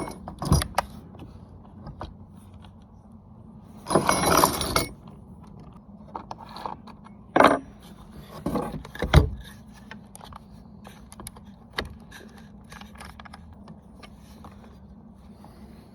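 Small metal parts of a top-handle chainsaw clinking and rattling as its saw chain and guide bar are handled and fitted, with a short clattering burst about four seconds in and a few sharp knocks.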